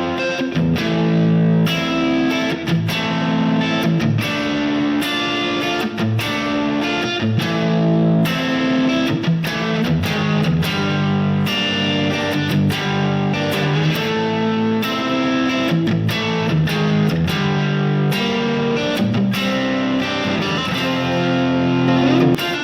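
Electric guitar played through a pedalboard on a crunch tone, light overdrive, picking chords and riffs without a break.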